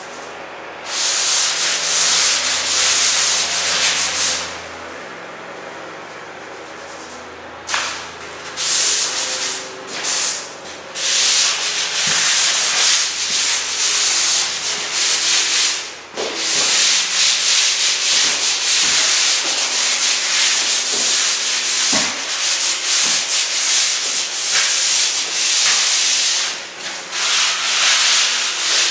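Airless paint spray gun hissing as it sprays water-based satin enamel, in bursts as the trigger is pulled and released: one burst a second in, a pause, then repeated passes that run almost unbroken through the second half.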